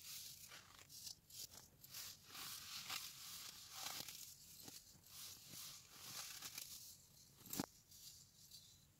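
Compressed cubes of dyed baking soda crumbled and crushed between the fingers: faint, irregular gritty crunching and powdery crumbling, with one sharper crack late on.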